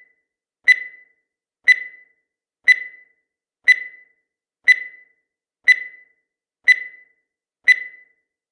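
Countdown timer sound effect: a short, sharp tick at a steady pitch, once every second, eight times.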